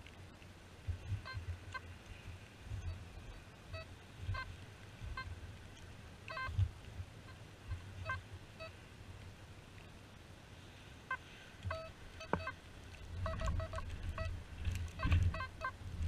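Metal detector lying on the ground giving short electronic beeps as the spade and dug soil pass near its search coil, with low thuds of digging in turf. The beeps come in irregular clusters and are most frequent near the end.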